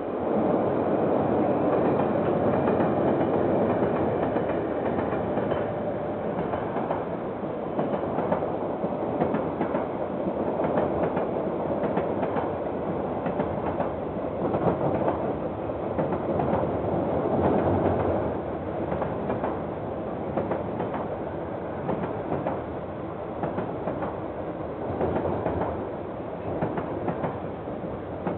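KiwiRail train passing close by, a steady rumble with wheels clicking on the rails throughout, heard through a security camera's microphone. It comes in suddenly at full loudness and swells and eases slightly as the cars roll past.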